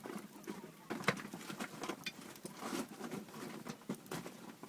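Open wood fire of small, very dry wood crackling, with irregular sharp pops and snaps several times a second as it burns.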